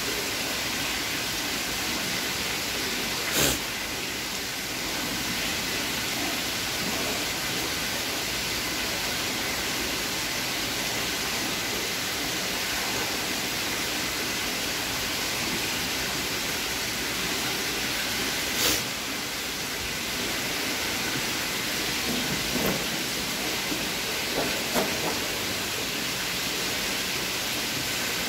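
A steady, even hiss with two sharp knocks, about 3 and 19 seconds in, and a few lighter clatters near the end.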